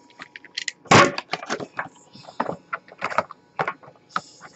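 A cardboard trading-card box being cut and pried open by hand: a run of sharp clicks, taps and tearing, with one louder knock about a second in.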